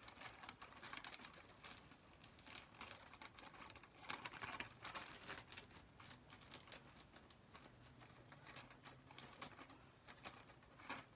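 Scissors snipping through the top of a plastic potting-mix bag, the plastic faintly crinkling and crackling as it is cut and handled, with a denser run of crackles about four to five seconds in.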